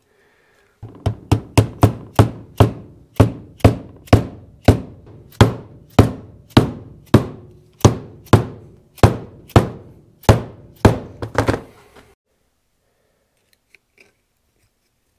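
Mallet tapping a new dual-lip oil seal into the steel housing of an excavator swing device, driving it in to sit flush: a steady series of sharp knocks, about two a second, that stops about twelve seconds in.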